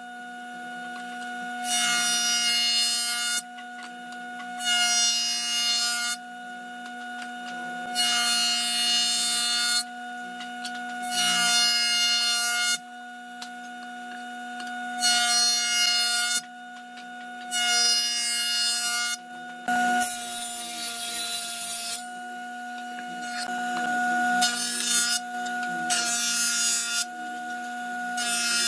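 Jointer running with a steady motor hum and whine while wood panels are pushed across its cutterhead again and again. Each pass is a loud rasping cut of about a second and a half, repeated roughly every three seconds, about nine times.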